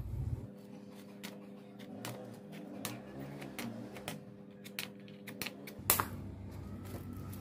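Scattered light clicks and taps of small hand work, irregular, with one sharp louder click about six seconds in. A low hum stops about half a second in, and faint steady tones sit underneath.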